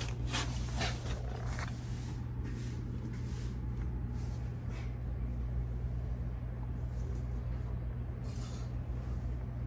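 Steady low hum of a refrigerator compressor running, with a few light knocks and rustles in the first two seconds and one more near the end.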